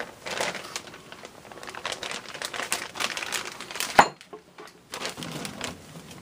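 Plastic packaging crinkling and rustling as the chicken breasts are handled, with one sharp snap about four seconds in.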